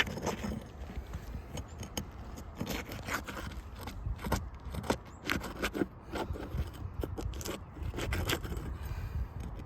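Flat end of a roof snake scraping and prying under asphalt roof shingles, with irregular crackling as the adhesive sealant strips tear loose from the shingles above.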